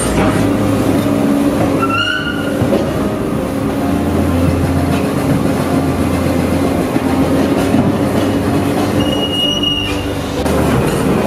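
Large tracked demolition excavator running under load while tearing up old tram track and asphalt: a steady engine drone with scraping metal and rubble, and two short high metallic squeals, about two seconds in and near the end.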